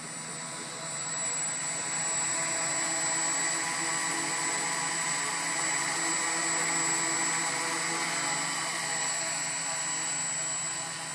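A homemade tricopter's three electric motors and propellers spinning on the ground without lifting off, a steady whine of several tones. It gets louder about a second in, holds steady, and drops off near the end.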